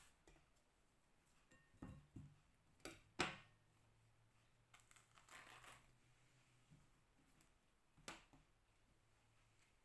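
Faint sounds of ripe bananas being peeled by hand: a few soft knocks and clicks, the loudest a little after three seconds in, and a brief rustle of peel near the middle.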